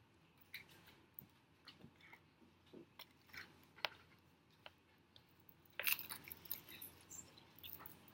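Faint close-up chewing and crunching of seaweed, a run of small crisp crackles and clicks, with one sharp click about four seconds in and a louder burst of crackling around six seconds in.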